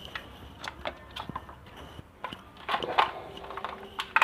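Irregular clicks and knocks of small hard parts being handled, with a brief clatter about three seconds in.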